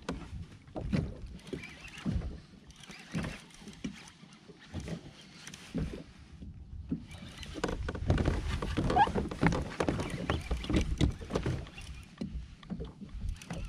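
Angler reeling in under heavy load in a plastic fishing kayak: irregular knocks and rustles from the reel and kayak, with water sounds around the hull. They grow denser and louder a little past the middle.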